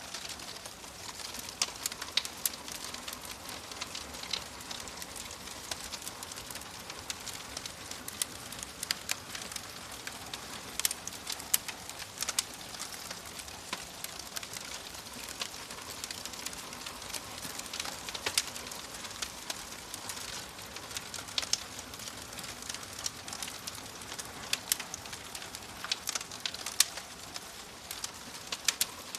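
Wood fire burning in a fireplace: a steady soft hiss with frequent sharp, irregular crackles and pops.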